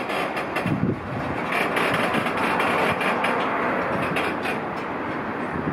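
Empty Koki 104 container flatcars of a freight train rolling slowly past on steel rails. Their wheels make a steady rumbling rattle broken by scattered clicks and knocks.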